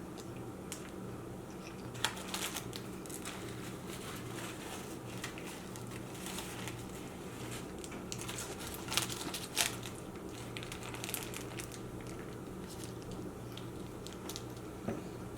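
Close-miked crinkling and crackling of a fast-food sandwich wrapper being handled, in scattered sharp bursts that are busiest around nine to ten seconds in, over a low steady hum.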